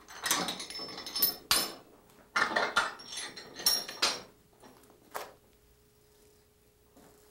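Heavy steel door of a gas-fired kiln being unlatched and pulled open: metal clanking, rattling and scraping in two bursts over the first four seconds, then a single knock about five seconds in.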